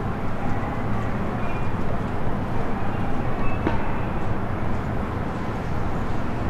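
Steady rumble of a commuter train car heard from inside the cabin as it runs, wheels and running gear on the rails, with a faint higher whine in the middle and a single click about three and a half seconds in.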